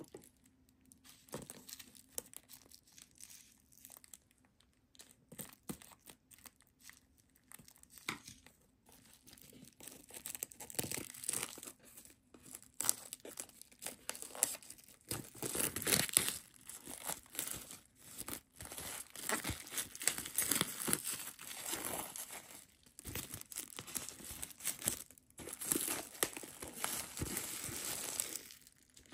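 An album's packaging being torn open and crinkled by hand, in irregular crackles that get busier and louder after about ten seconds.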